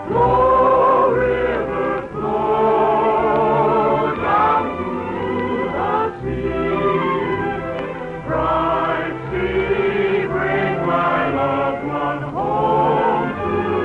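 Chorus singing a show tune with orchestral accompaniment, held sung notes with vibrato over a steady bass line, in the narrow, dull sound of a 1950s radio broadcast recording.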